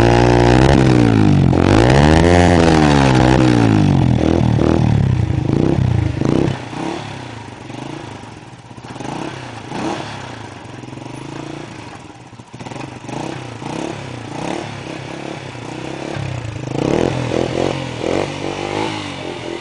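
Kuba 125 cc motorcycle engine revved through an aftermarket exhaust, its pitch rising and falling twice in the first few seconds. It then drops to a quieter, uneven running sound, with a few more revs near the end.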